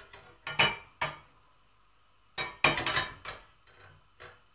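Frying pan and utensils clinking against metal on a gas stove: a couple of single clinks, then a quick clatter of several knocks about halfway through, and a few softer taps near the end.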